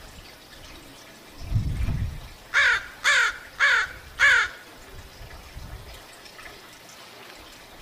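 A bird giving four harsh calls in a row, each falling in pitch, about half a second apart, shortly after a brief low rumble.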